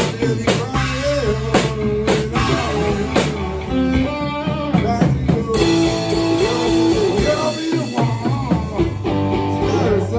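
Live blues band playing: an electric guitar carries a melody line with bent, wavering notes over electric bass and a drum kit keeping a steady beat.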